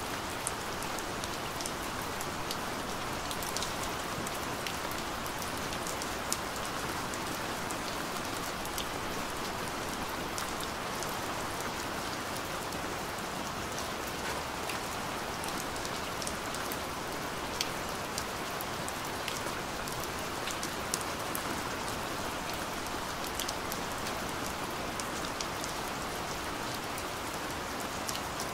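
Rain recording: steady rainfall with scattered sharp drop hits.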